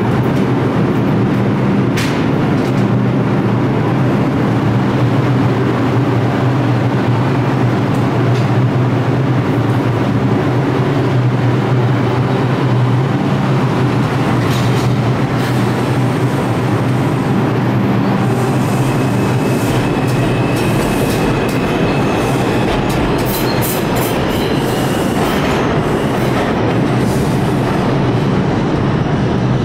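R142 subway train pulling through the station platform: a steady loud rumble of wheels and running gear on the rails, with a thin high whine joining about two-thirds of the way in for several seconds.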